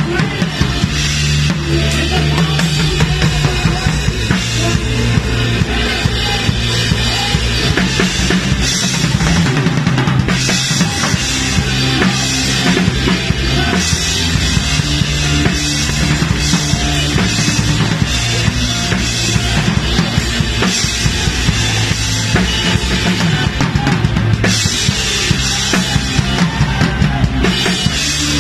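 Acrylic drum kit played close to the microphone inside a full live band: kick, snare and cymbals keep a steady rock beat over sustained bass notes.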